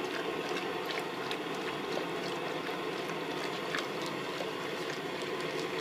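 Steady watery rushing from a vat of hot dye water, with a few faint ticks.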